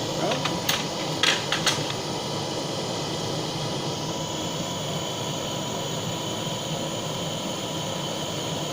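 Butane blowtorch flame running with a steady hiss, with a few sharp metal clinks in the first two seconds as the crucible of molten silver solder is poured into the mould.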